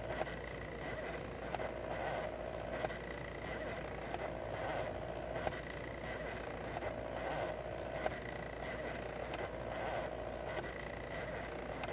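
2000 mW diode laser engraver's stepper motors whining as the head traces an outline, a steady tone that swells and fades with each change of move, with a few small ticks.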